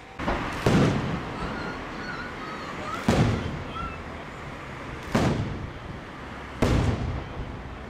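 Aerial firework shells going off: four loud bangs about two seconds apart, each trailing off in a long echo.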